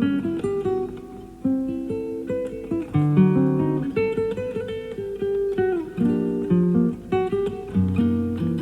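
Classical guitar played live, plucking a melody of single notes and chords, with one note sliding down in pitch partway through. The sound is a cassette-tape recording of an FM radio broadcast, with little high treble.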